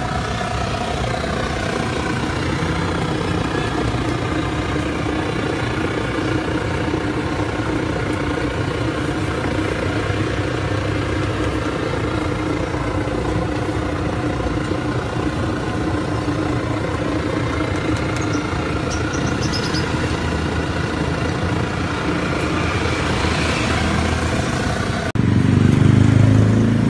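A steady engine hum, like a motor idling, with a hiss over it; a little before the end it turns suddenly louder and deeper.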